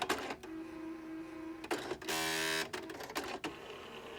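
Brother electronic typewriter running its reset cycle after the code and reset keys are pressed: mechanical clicks, a steady motor hum, and a loud half-second buzz about two seconds in, then a few more clicks.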